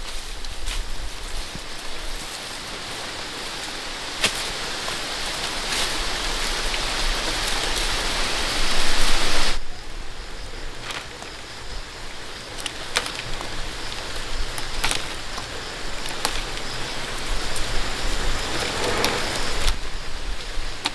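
Small hard palm fruits being stripped by hand off their stalks and pattering into a woven basket, a dense rain-like rattle with sharp clicks as single fruits drop. The rattle builds, cuts off suddenly about halfway through, then comes back sparser and swells again near the end.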